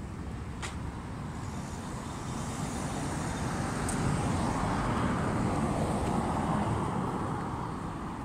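Road traffic: a car passing, its engine and tyre noise swelling over the middle few seconds and easing off near the end.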